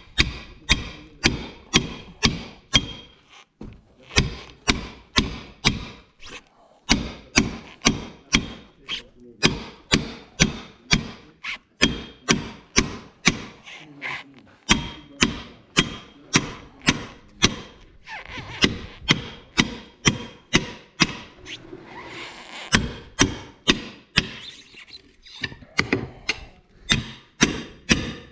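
Hammer blows on a tractor tyre and its steel rim, struck over and over at about two to three a second with a few short pauses, each with a slight metallic ring: the bead being knocked loose from a rusty rim by hand, without a bead breaker.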